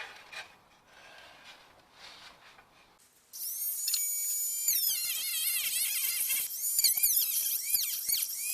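A small high-speed power tool, such as a rotary tool, starts about three seconds in with a sudden high whine that holds steady at first. Its pitch then wavers up and down repeatedly as it bites into the work and loads the motor.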